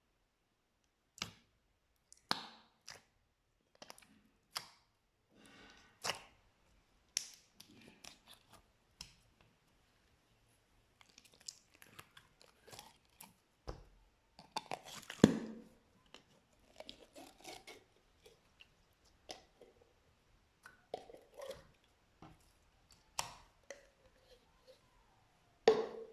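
Slime being worked and squeezed, giving irregular sharp clicks, pops and squelches with short silences between them. There is a denser, louder squelching patch about fifteen seconds in and another loud pop near the end.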